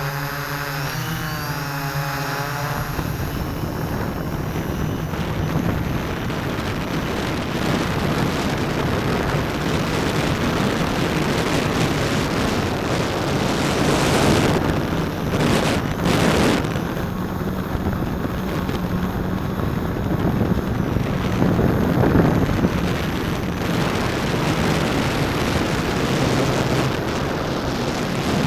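S650 hexacopter in flight. Its motors and propellers whine, wavering in pitch, for the first few seconds. Then a stiff headwind howling over the onboard camera's microphone swamps them, gusting louder now and then, with the strongest surges about halfway through.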